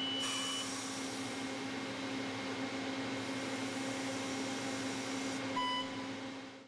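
Steady hum and hiss with no speech, with a short high beep at the start and another brief beep about five and a half seconds in.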